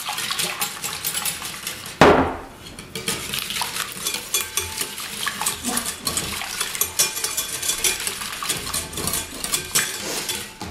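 Wire whisk beating eggs and tomato juice in a ceramic mixing bowl: a fast, uneven run of clinks and scrapes of the wires against the bowl, with one sharp knock about two seconds in.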